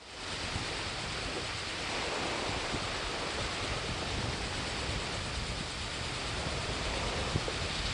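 Steady wind buffeting the microphone, mixed with the wash of waves on the shore. It fades up in the first half second and then holds steady.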